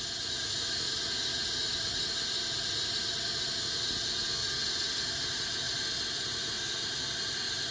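Steady white-noise static from a GhostTube ghost-hunting app, an even hiss strongest in the high range.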